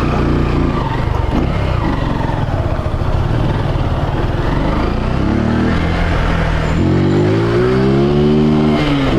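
Honda Titan 150's single-cylinder four-stroke engine, carbureted and running with no air filter or intake hose, pulling under acceleration. Its pitch climbs steadily over the second half and drops sharply near the end at a gear change.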